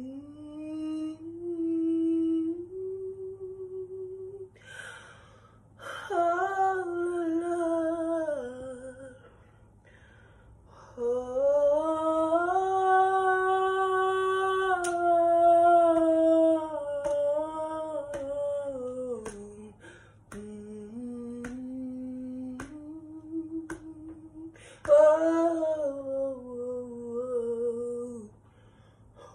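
A woman singing unaccompanied without words, humming and vocalising in phrases that slide up and down in pitch, with one long held note in the middle and short pauses between phrases.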